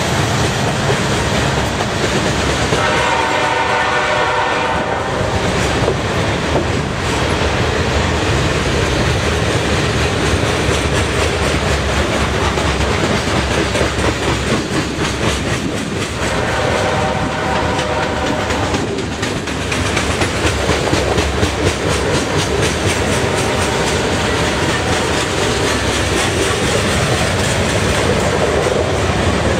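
Freight train's covered hopper cars rolling past, their steel wheels clacking over the rails. A locomotive horn sounds twice further down the line, about three seconds in and again around fifteen seconds in, for a few seconds each time.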